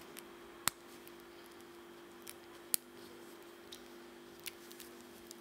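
Stainless steel Cartier Roadster bracelet and folding clasp being handled: two sharp metal clicks about two seconds apart as the clasp snaps, with lighter clinks of the links in between and after, over a faint steady hum.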